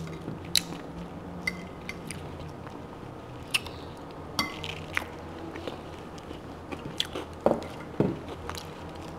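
Chewing and mouth smacks of someone eating roasted rack of lamb, with short sharp clicks scattered through.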